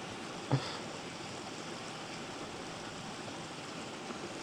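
Steady rushing of water from a moorland waterfall, with a brief knock about half a second in.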